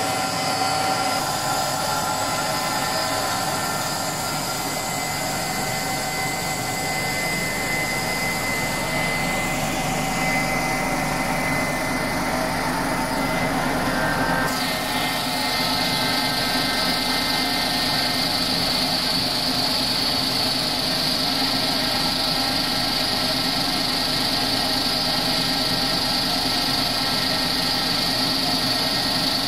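PLA/PBAT twin-screw compounding line and strand pelletizer running: a steady machine whine with several held tones over a hum. A high hiss grows stronger about halfway through and then holds steady.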